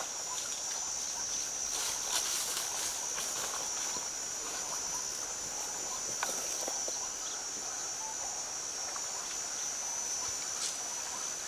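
Steady high-pitched insect buzz, with a few faint clicks over a low outdoor hiss.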